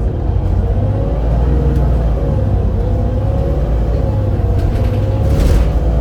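Volvo B7RLE bus's diesel engine and ZF EcoLife automatic gearbox running: a steady low rumble with a whine that wavers slightly in pitch. A short hiss comes about five and a half seconds in.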